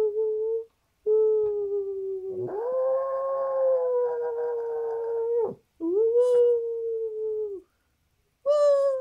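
Miniature pinscher howling in a run of long, steady notes, each held for one to several seconds, with a person howling along with it for about three seconds in the middle.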